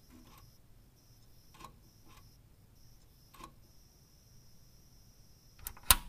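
On/off switches being pressed: four light clicks spread a second or so apart, then a much louder double click near the end.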